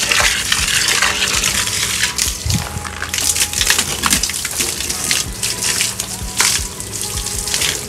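Running water gushing and splashing as plants are watered, the rush rising and falling in strength. A faint steady low hum sits underneath.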